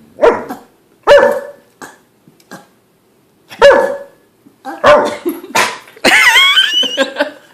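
A dog barking in a string of short, loud barks. About six seconds in it gives a longer call that wavers up and down in pitch. It is the dog's vocal answer to a person's burping.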